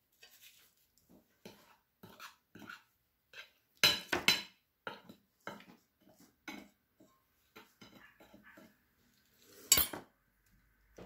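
Metal cutlery knocking and clinking against ceramic plates and bowls while food balls are coated in egg and breadcrumbs: a string of light taps, with louder clinks about four seconds in and again near the end.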